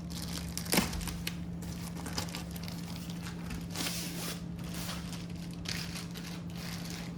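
Plastic protective sleeve around a rolled diamond-painting canvas crinkling and rustling as it is handled, with a sharp tap about a second in. A faint steady low hum runs underneath.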